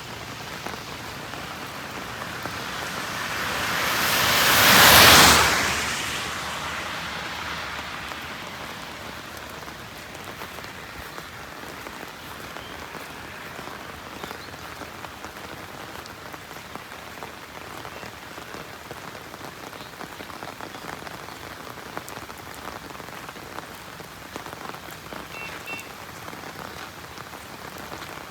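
Heavy monsoon rain falling steadily on a wet road. About five seconds in, a vehicle passes on the wet road: the hiss of its tyres through the water swells up, peaks and fades away over several seconds.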